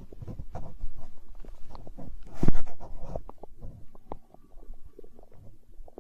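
A hungry human stomach gurgling and growling: a run of short bubbling pops and squelches, with one louder gurgle about two and a half seconds in.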